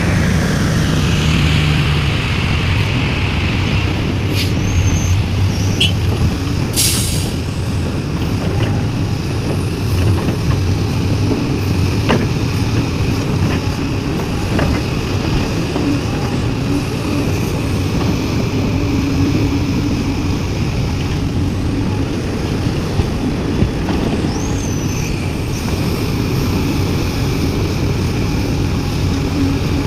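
Heavy diesel engines of a Sumitomo SH350 excavator and a Hino dump truck running steadily while the excavator loads soil. A few brief high squeaks and clicks come through, with a short hiss about seven seconds in.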